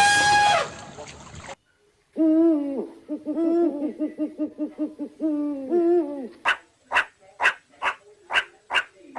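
An owl hooting: a long low hoot that breaks into a fast quavering trill and ends on a held note. It is followed by a run of short sharp calls, about two a second. A brief high squeal is cut off at the very start.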